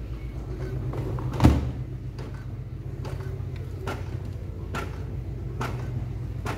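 Brother MFC-J2330DW inkjet printer printing: a steady low hum with a regular click a little more often than once a second, and one louder thump about a second and a half in.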